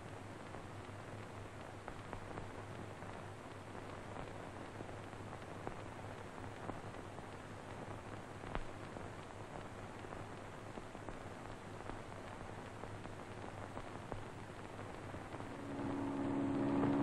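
Steady hiss and scattered crackle of an old optical film soundtrack, with a low hum under it. Near the end, a steady low drone made of several tones fades in.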